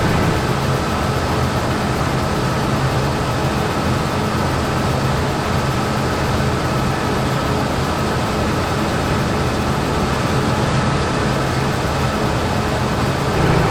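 New Holland TR89 combine harvester running at work, its engine and threshing machinery making a steady, dense mechanical din with a low engine hum and a thin steady whine.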